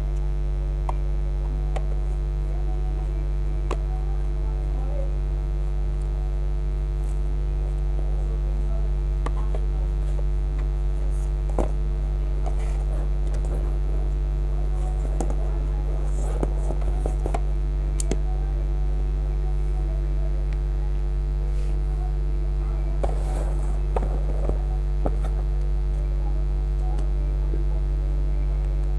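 Steady electrical hum, a low drone with higher overtones, with a few faint clicks and handling noises scattered through it.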